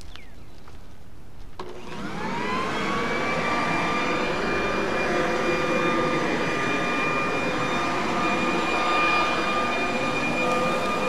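Corded electric leaf blower switched on about one and a half seconds in, its motor whine rising quickly as it spins up, then running steadily at full speed with a high whine over the rush of air.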